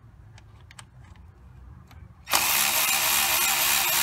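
A few faint ratchet clicks, then a little over two seconds in a power ratchet starts and runs loud and steady, spinning a 10 mm thermostat housing bolt out with a socket on an extension.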